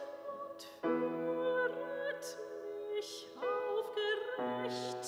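A singer with vibrato, accompanied by held keyboard chords, performing a sacred song. The chords change about a second in and twice more near the end.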